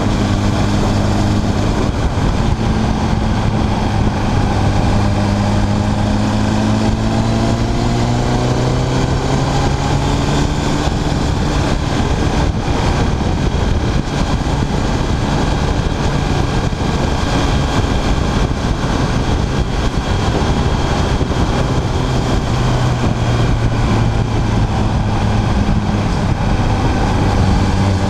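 Motorcycle engine running at road speed with heavy wind rush on the bike-mounted camera's microphone. The engine note climbs as the bike accelerates in the first several seconds, and the wind noise then largely covers it. The engine's steady note comes through again near the end.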